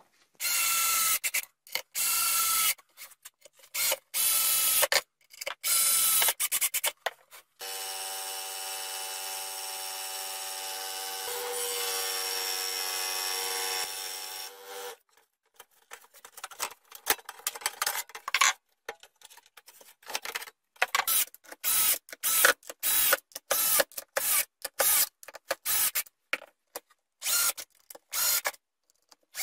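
Workshop power-tool sounds: short separate bursts of tool noise at first, then a scroll saw running steadily for about seven seconds as it cuts a white panel. After it stops come many short, irregular bursts, the last of them a 12 V cordless drill driving small screws.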